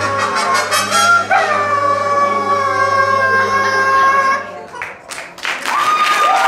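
Male vocal trio singing long held notes, each sliding down in pitch as it begins, which break off about four and a half seconds in. Audience applause starts near the end, with a voice holding a note over it.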